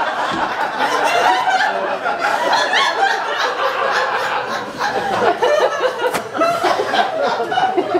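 Audience laughter: many people chuckling and laughing at once.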